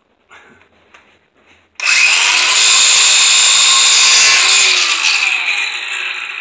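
A power tool starts abruptly about two seconds in with a rising whine, runs loud and high-pitched, then slowly winds down.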